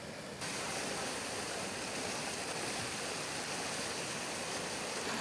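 Muddy floodwater rushing over a submerged low bridge and pouring off its edge, a steady rush of water that cuts in suddenly about half a second in.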